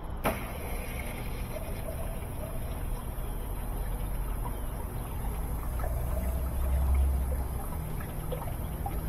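Kenmore Elite Oasis top-load washing machine running a test cycle, water trickling in the tub over a low steady rumble that swells about seven seconds in. A single sharp click just after the start.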